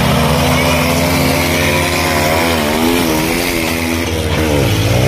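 Diesel tractor engines running hard under heavy load as the tractors pull through loose ploughed soil, their pitch wavering and dipping lower near the end.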